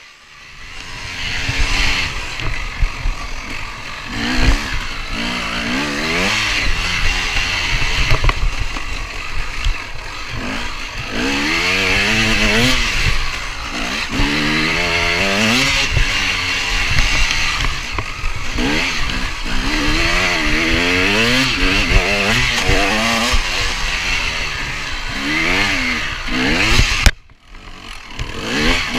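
KTM 250 EXC two-stroke dirt bike engine revving up and falling back over and over as it is ridden hard through the gears, with wind noise on the microphone. The sound cuts out suddenly for about a second near the end.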